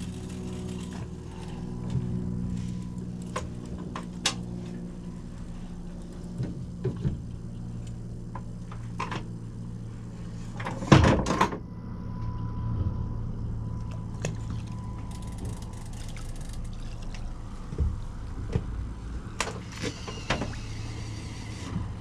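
Steady low hum of a boat motor holding the boat in place, with scattered knocks and clicks of fishing gear on the aluminum hull and a louder clatter about halfway through as a rod is cast.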